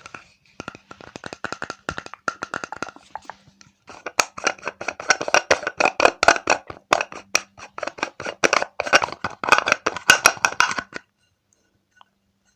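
Fast, aggressive ASMR tapping and patting while translucent powder is applied, a dense run of sharp taps several a second. It gets louder and busier about four seconds in and stops about a second before the end.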